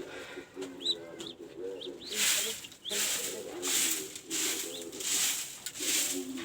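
A broody mother duck of a Muscovy cross hisses in short repeated bursts from about two seconds in, warning off someone close to her nest. Low cooing runs throughout, and a few high peeps from newly hatched ducklings come in the first two seconds.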